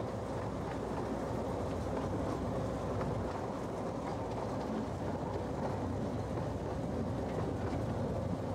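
Miniature railway train running, heard from an open passenger carriage: a steady rumble of wheels and running gear on the track, with occasional faint clicks.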